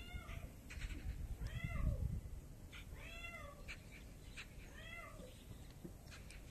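A cat stuck under a footbridge meowing over and over: four separate meows about a second and a half apart, each rising and then falling in pitch.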